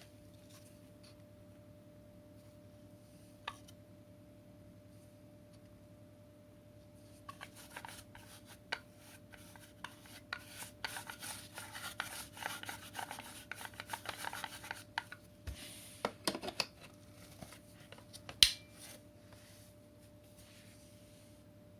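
Handling noises: a single click early on, then about ten seconds of rubbing and scraping with many small clicks, and one sharp click near the end that is the loudest sound. A faint steady hum runs underneath.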